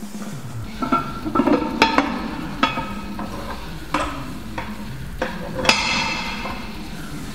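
Cast-iron barbell weight plates clanking against each other and the bar as they are pushed onto the sleeve: a series of sharp metal knocks with a brief ringing after each, the loudest about two seconds in and again near six seconds.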